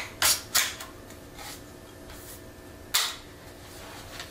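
Sharp metallic clicks and clacks of a Black Aces Pro Series X semi-automatic 12-gauge shotgun's action being worked by hand while snap-cap dummies are loaded: three quick clicks in the first second, then one louder clack about three seconds in.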